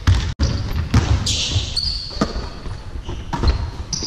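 Basketballs bouncing irregularly on a sports-hall floor, with a short high squeak a little over a second in.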